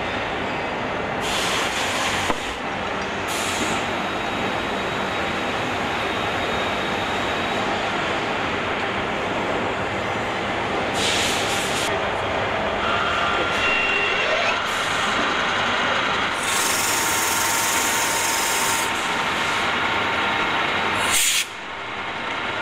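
Factory-floor machinery running as a steady din, with several short hisses breaking in over it. The din drops off abruptly near the end.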